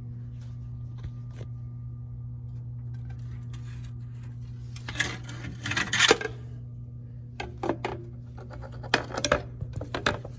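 Metal return-air vent grille clinking and rattling as it is handled, in two bursts of knocks, one about halfway through and one near the end. Under it runs the steady low hum of the HVAC unit.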